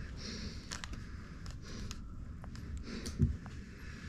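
Soft rustling and handling noise from a handheld camera, with scattered light clicks and a dull thump about three seconds in.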